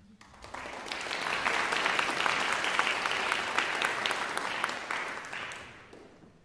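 Audience applauding, swelling over the first second and dying away near the end.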